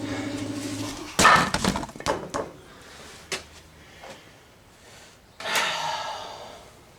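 Objects being shifted about in a cluttered workshop: a burst of knocking and clattering of wood and hard objects, a single click, then a louder rustling scrape. A steady hum cuts off about a second in.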